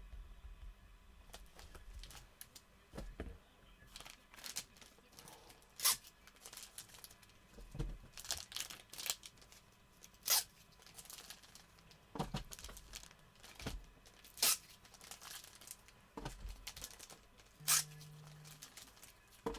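Trading-card pack wrappers being torn open and crinkled by hand: irregular sharp tearing and crackling, with sharper strokes about every second or two.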